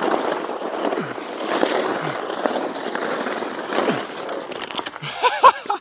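Sledge sliding and scraping over slushy, churned snow, a steady rough hiss heard from on the sledge. Brief shouts come about five seconds in.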